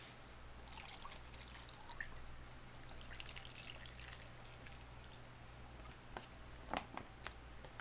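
Liquid soup base squeezed from a plastic pouch through its spout into a hotpot of ingredients: a faint pouring and dribbling, with a few sharp clicks from the pouch near the end.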